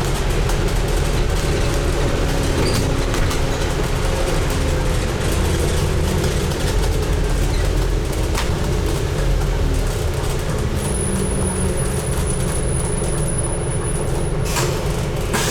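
Scania N250UD double-decker bus running on the road, heard from inside: a steady low engine and drivetrain rumble whose note slowly drifts, with scattered rattles from the bodywork.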